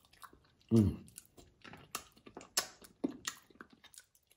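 Wet mouth smacks and sucking as a man licks sauce off his fingers while eating, a quick run of sharp clicks, with a hummed 'mm' just under a second in.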